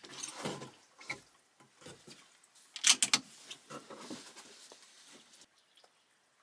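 Handling noise: a string of clicks, knocks and rustles, with the loudest cluster of sharp clicks about three seconds in.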